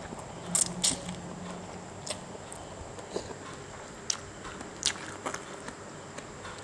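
Close-up chewing of a spicy instant-noodle salad (yam Mama): wet mouth smacks and crisp crunching clicks every second or so, irregularly spaced.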